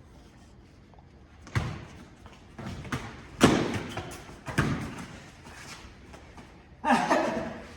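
Foam-padded combat weapons striking during a sparring exchange: several separate dull thuds, the loudest about three and a half seconds in.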